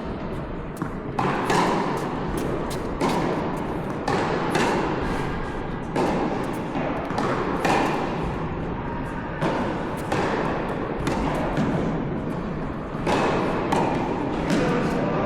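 Tennis balls struck by racquets in a baseline rally, a sharp hit about every second and a half, over a steady background hum.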